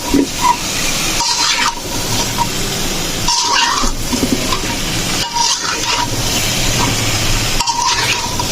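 Steady hissing of cooking on a stove, with short breaks about every two seconds.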